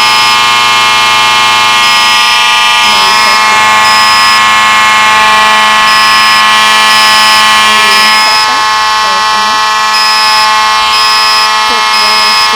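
Fire alarm horn sounding continuously after its pull station has been activated: a loud, steady, buzzy tone. A faint high beep repeats about once a second over it.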